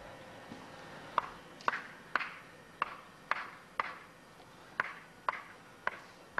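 Hammer blows from workers laying a paved path: about ten sharp, ringing strikes beginning about a second in, coming irregularly about half a second apart.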